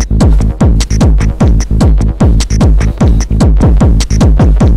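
Techno pattern from a Korg Electribe ESX played through an Etek Optima compressor/limiter: a kick drum falling in pitch on each beat, about three a second, with high hi-hat ticks between, loud and evenly pumped.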